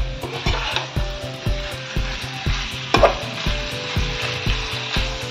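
Chicken pieces coated in yogurt sizzling in a frying pan while a spatula stirs and scrapes them, with one louder scrape about three seconds in. Background music with a steady beat of about two beats a second plays underneath.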